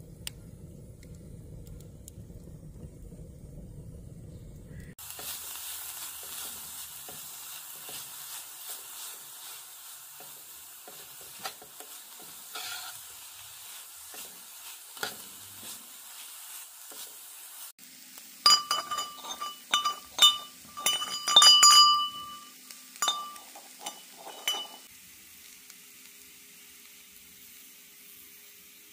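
A wood fire burning with a low rumble for about five seconds. Then chopped greens sizzle in a copper pot while they are stirred with metal tongs. Near the middle comes a run of sharp ringing clinks of the tongs against the pot, the loudest part.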